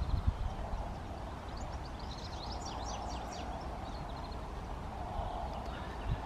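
Small birds in the trees giving quick high chirps and twitters, with a burst about two seconds in, over a low outdoor rumble of wind and footsteps.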